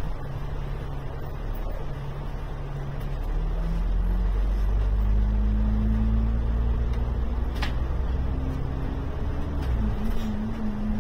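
Diesel engine of an Alexander Dennis Enviro 500 MMC double-decker bus, heard from on board as the bus moves in traffic. The engine note and rumble rise about four seconds in as it speeds up, hold steady, then dip near the end.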